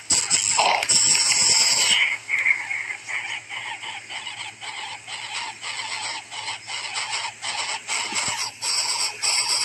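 Coucal chick in the nest making a rapid, irregular series of short, harsh, noisy pulses, a few a second, while a dead rat is lodged in its mouth. A steady high buzz sounds over the first two seconds.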